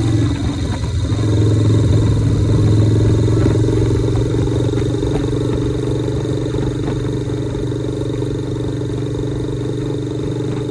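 Harley-Davidson Shovelhead V-twin engine of a 1983 chopper running while being ridden. The note climbs in the first second, then holds steady at an even speed.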